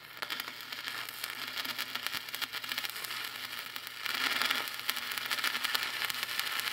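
Stick-welding arc crackling and sizzling steadily as a steel receiver tube is welded onto a truck's rear crossmember. The arc strikes right at the start and swells louder for a moment about four seconds in.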